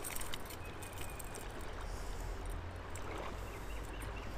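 Wind rumbling on the microphone over the steady wash of stream water, with faint handling noises from a trout being worked out of a landing net. A faint row of short high chirps comes in during the second half.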